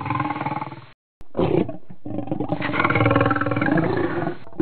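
Lion roaring in a series of rough calls: one cuts off about a second in, a short one follows, then a long one from about two seconds in, with a louder call starting right at the end.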